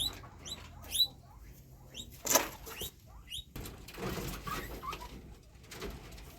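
Guinea pigs squeaking in short rising chirps, several times, among bursts of rustling and scuffling as they move about, the loudest rustle about two seconds in.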